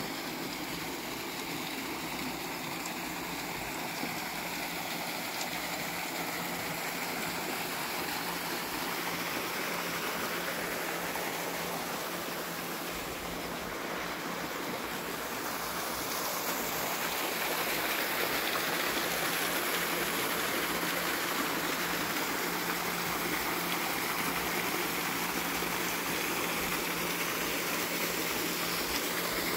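Small waterfall pouring over sandstone ledges into a pool, a steady splashing rush that grows louder about halfway through.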